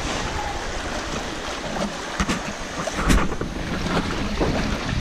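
Fast-flowing water rushing and splashing in a concrete irrigation ditch right at the microphone, with a couple of sharper knocks about two and three seconds in.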